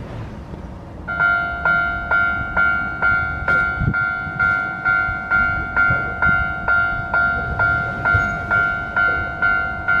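Japanese railway level-crossing warning bell starting up about a second in, a ringing 'kan-kan' tone struck a little more than twice a second, warning that a train is approaching and the barriers are coming down. Light street background underneath.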